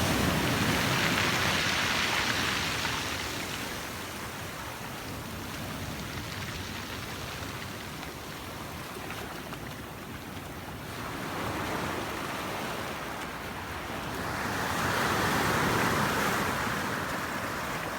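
Mediterranean sea waves washing, swelling loudest at the start and again near the end, with a softer wash of water between.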